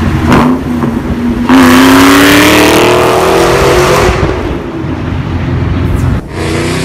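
Supercharged V8 of a cammed 2004 SVT Cobra with longtube headers, off-road H-pipe and Borla exhaust, pulling hard at full throttle alongside. The exhaust note rises steadily in pitch and turns very loud about a second and a half in, then fades as the car pulls away. Near the end another pull begins, again rising in pitch.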